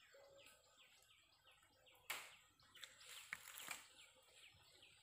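A bird calling faintly in a steady series of short falling notes, about three a second. A sharp crackle comes about two seconds in, followed by a stretch of rustling.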